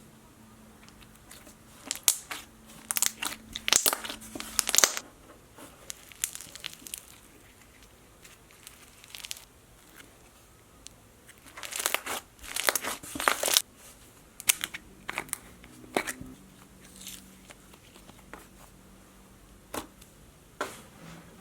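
Slime being squished and poked by hand, giving two runs of crackling, popping clicks and a few single pops in between.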